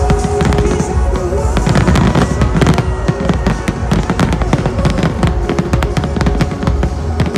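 Fireworks bursting and crackling in quick succession over loud music with a heavy bass beat from the show's sound system.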